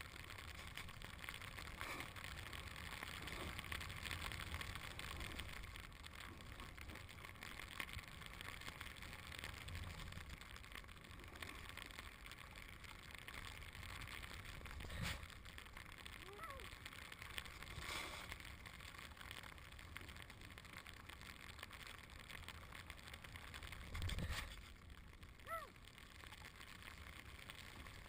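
Snowboard sliding through fresh powder snow: a steady hiss, with a few knocks, the loudest near the end.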